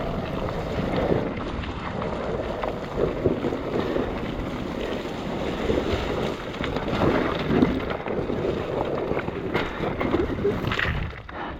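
Enduro motorcycle climbing a steep rocky slope head-on, its engine noise mixed with wind buffeting the microphone. The noise drops away near the end.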